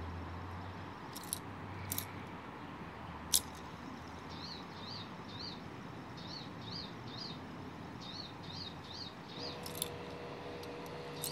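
A few sharp clicks as a brass fidget spinner is handled and flicked, over a steady background hiss. From about four seconds in, a small bird chirps over and over in quick runs of three, and a steady hum comes in near the end.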